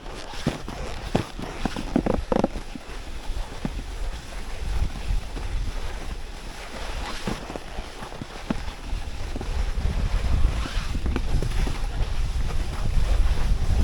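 A snowboard sliding over snow, with wind buffeting the microphone. A few sharp knocks come in the first few seconds, then the low rush of wind builds louder as speed picks up.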